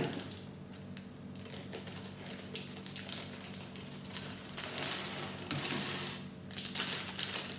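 Plastic LEGO polybag being torn open and crinkled, then small plastic LEGO pieces tipped out of it, clattering onto a wooden table about five seconds in.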